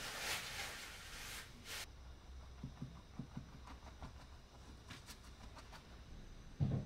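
Paintbrush strokes scratching across a canvas: a scratchy hiss for the first second and a half, then scattered light taps and clicks, and one low thump near the end.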